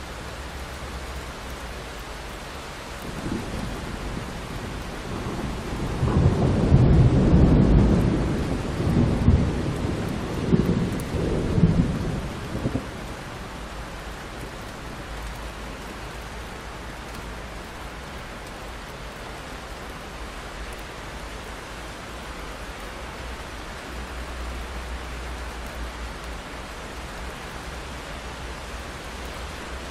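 Steady rain pattering on window glass. A few seconds in, a long roll of thunder rumbles in, is loudest about a quarter of the way through with two further surges, and dies away before the halfway point.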